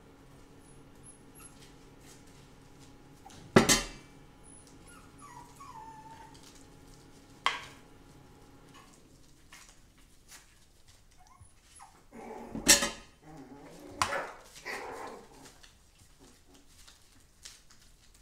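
A metal spoon working into slow-cooked lamb shoulder on a foil-lined platter, with a few sharp clanks against the tray, the loudest about four seconds in and again near thirteen seconds. Short falling whine-like tones come in between.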